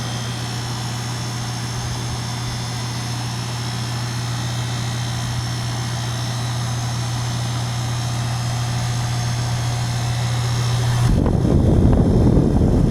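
2022 two-ton Goodman heat pump outdoor unit running in cooling mode: a steady compressor hum and condenser fan, slowly growing louder. Near the end a louder rumble on the microphone covers it for about two seconds.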